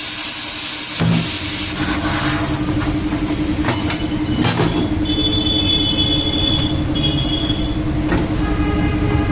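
Air compressor running with a steady hum under a hiss of compressed air, with a few clanks and a thin high whistle in the middle, as at a tyre being inflated.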